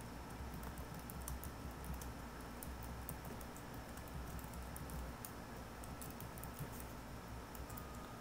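Computer keyboard being typed on, fairly quiet: irregular keystroke clicks in short runs while a line of code is entered, over a steady low hum.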